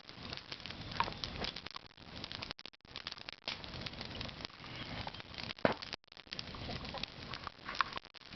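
Campfire crackling, with many short sharp pops and snaps.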